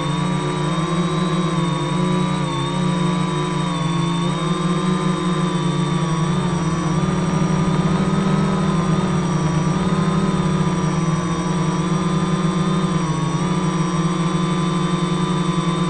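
Gaui 330X-S electric quadcopter's motors and propellers running, heard from a camera mounted on the craft itself: a loud, steady whine of several pitches that waver slightly as the motors change speed, over a fast propeller buzz.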